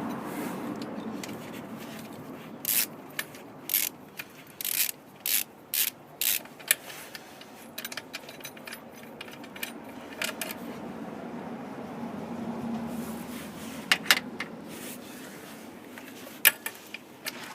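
Hand tools working on metal under the hood: a run of short scraping clicks at about two a second, then a few more sharp clicks near the end, as a part is unscrewed from the engine.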